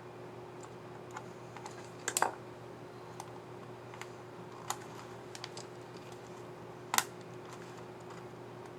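Plastic keycap and scissor-mechanism clicks on a Lenovo IdeaPad Flex 4 1470 laptop keyboard as a key is snapped back on and pressed. The clicks are scattered, with a quick cluster about two seconds in and a single sharp click near seven seconds, all over a faint steady hum.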